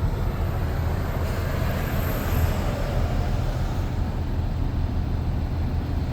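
MAN TGX 400 truck's diesel engine running steadily with a low drone; a faint whine rises and falls about two seconds in.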